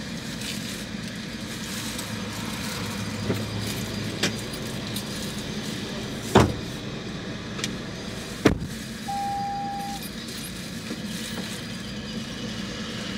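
Steady road-vehicle noise with a few sharp knocks, and one short steady beep about nine seconds in.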